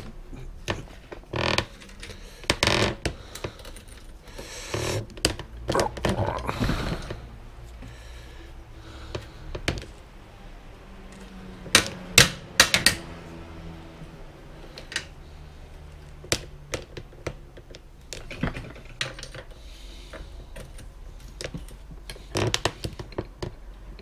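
Irregular metallic clicks and clinks of a tool working on a bicycle's bottom bracket, with the loudest clacks about halfway through. The bottom bracket is being screwed back in and tightened after it had worked loose and had play.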